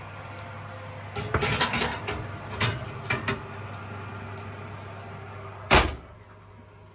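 Kitchen handling sounds: cookware and utensils clatter for a couple of seconds, then near the end a single loud thump like a door being shut, over a steady low hum.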